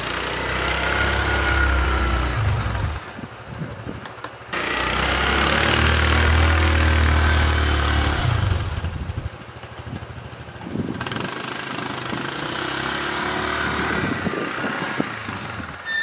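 Four-wheeler (ATV) engine running as it pushes snow with a front plow blade, loud and rumbling in two stretches during the first half, then steadier and a little quieter.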